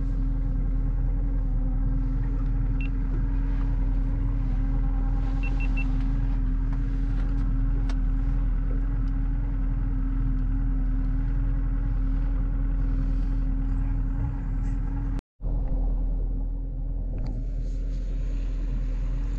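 Small boat's outboard motor running steadily at low speed, a constant low hum. The sound drops out for a split second about fifteen seconds in.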